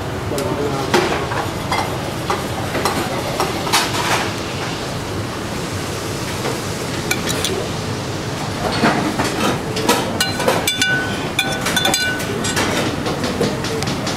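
Restaurant kitchen background: a steady noise with scattered clinks and knocks of utensils and plates as a dish is plated. A short run of high pitched pings comes about ten seconds in.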